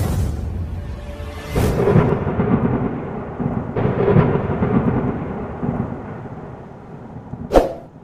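Thunder sound effect: deep rolling rumbles, with new claps about one and a half and four seconds in, fading away, then one short sharp hit near the end.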